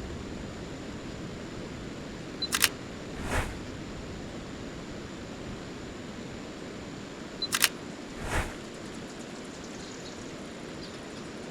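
Mirrorless camera (Sony a7 IV) firing its shutter twice, about five seconds apart: each time a short high focus-confirmation beep, a quick double click of the shutter, then a softer sound just under a second later. Steady outdoor background hiss throughout.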